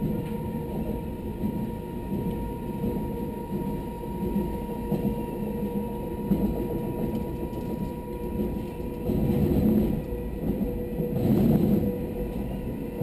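Electric suburban train running along the track, heard from the driver's cab: a steady rumble of wheels on rail with a constant high hum. The rumble swells twice near the end.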